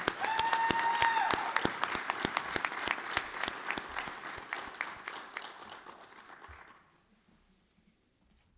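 Audience applauding, many hands clapping, dying away about seven seconds in. A brief high-pitched tone sounds over the clapping in the first second or so.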